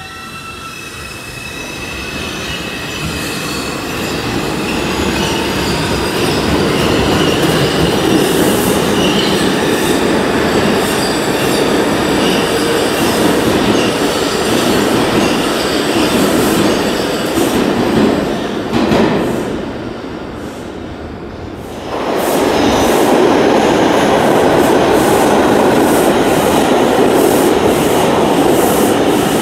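New York City subway train on the IRT Nostrand Avenue Line running through the tunnel and into the station: a loud rumble of steel wheels on rail that builds over the first several seconds, with thin wheel squeal. After a short dip about twenty seconds in it comes back loud as the train runs in beside the platform, with quick clicks of the wheels over rail joints.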